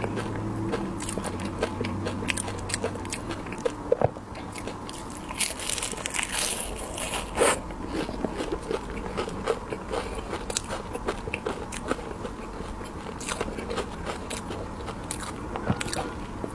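Close-miked biting and chewing of candied hawthorn: the hard sugar glaze cracks in many sharp crunches, with a louder crunch about four seconds in and a longer stretch of crackling a little past the middle.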